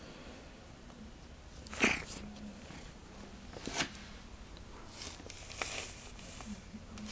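Cat rubbing against a petting hand and the camera, its fur brushing the microphone in three short rustling bursts, the loudest about two seconds in.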